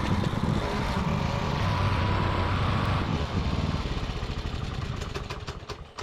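An engine running steadily, fading away over the second half, with a few sharp clicks as it drops off near the end.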